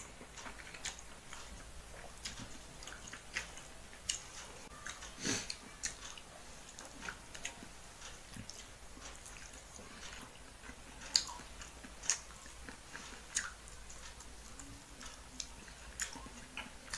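A person eating by hand, close to the microphone: irregular wet chewing and lip-smacking clicks, with fingertips wiping along a metal plate.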